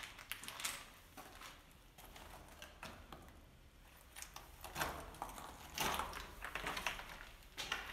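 Footsteps crunching and scuffing on loose rubble and gravel over a concrete floor, irregular, with louder clusters of steps about five to seven seconds in.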